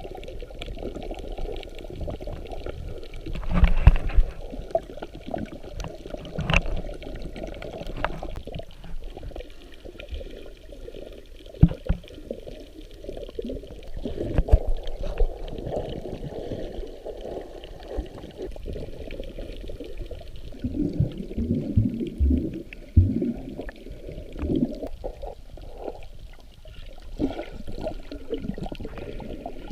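Muffled water sloshing and gurgling, with scattered knocks and bumps, the loudest about four seconds in.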